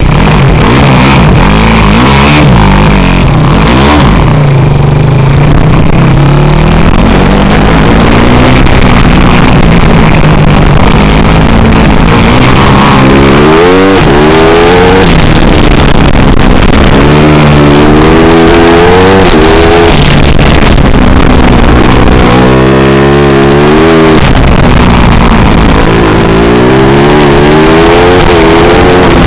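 250 cc four-stroke kart engine heard on board, very loud, revving up in repeated rising climbs and dropping back between them as the kart accelerates and slows around the track.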